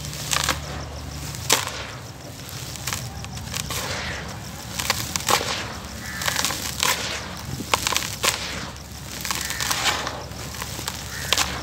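Handfuls of dry, gritty dirt being scooped up and poured back into a plastic tub: a hiss of falling grains with irregular sharp crunches and clicks of grit.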